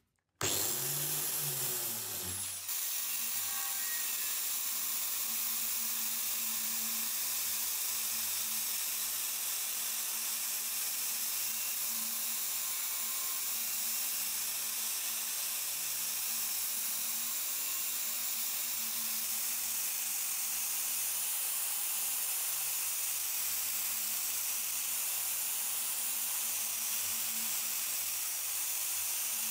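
Angle grinder with a red non-woven abrasive disc polishing a steel cleaver blade: a steady hiss over a faint motor hum, starting abruptly about half a second in.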